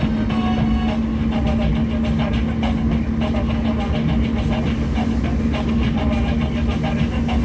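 Car driving along a road, heard from inside the cabin: a steady engine and tyre rumble with a constant low hum.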